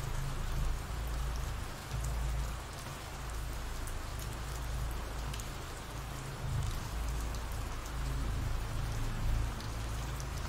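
Steady rain ambience: an even hiss of rainfall with a low rumble underneath and scattered faint ticks of drops.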